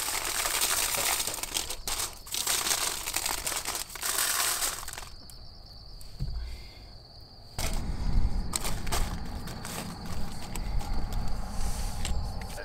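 Seasoning shaken from a shaker onto elk meat on an aluminium-foil-lined pan: a dense, gritty rattle with the foil crinkling, which stops about five seconds in. After a quieter pause, handling knocks and a low rumble follow.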